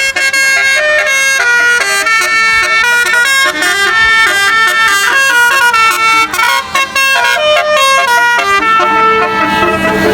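Bus telolet horn: a tour bus's multi-tone horn playing a quick tune, its notes changing several times a second, with longer held notes near the end.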